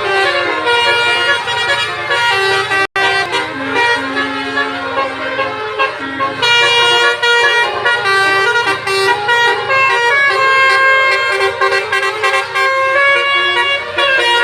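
Indonesian basuri (telolet) multi-tone bus air horns playing tunes. Several horn notes sound at once and change in steps from note to note, with a momentary dropout about three seconds in.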